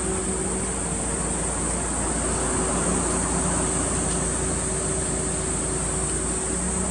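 Steady mechanical hum: a constant low drone with a few fixed tones over an even hiss, unchanging throughout.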